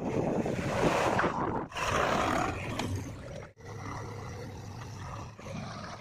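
Heavy-machine engine noise from a JCB 3DX backhoe loader and a tractor, cut together from short clips so the sound changes abruptly about every two seconds. It is loudest in the first half and turns to a quieter, steady low engine hum after about three and a half seconds.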